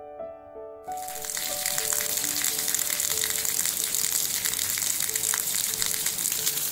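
Heavy rain pouring, a dense steady hiss that comes in about a second in, with soft piano music playing underneath.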